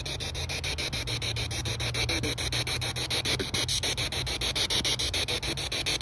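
Spirit box app sweeping through radio static: a steady hiss chopped into rapid, even pulses, about seven a second.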